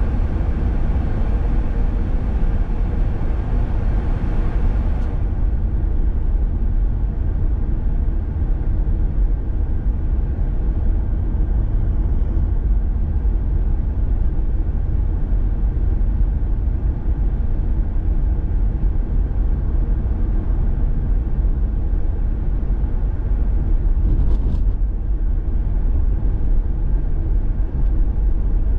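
Steady low rumble of a car driving along a road. A higher hiss over it drops away about five seconds in, and there is one brief click near the end.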